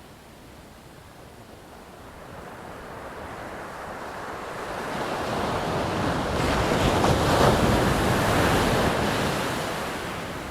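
Ocean surf: a wave rushes in, its noise building over several seconds, peaking past the middle, then washing back and fading near the end.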